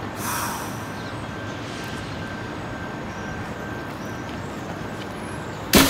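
Steady city street noise: a low traffic rumble with a faint steady high tone through the first half. A loud sudden sound cuts in just before the end.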